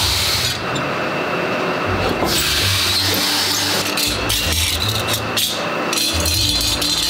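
Forged steel hoe blades clinking and scraping against one another and the concrete floor as they are gathered into a stack, over a continuous low rumble of workshop machinery.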